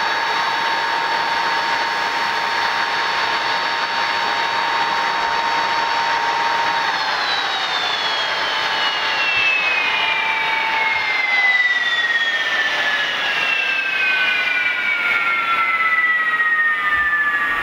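Ilyushin Il-62M's Soloviev D-30KU turbofans whining steadily at idle, then spooling down as the engines are shut down: a falling whine begins about seven seconds in and a second one about four seconds later, the pitch still dropping at the end.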